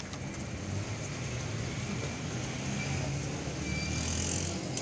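Street ambience dominated by a motor vehicle's engine running, a low rumble that grows a little stronger in the second half.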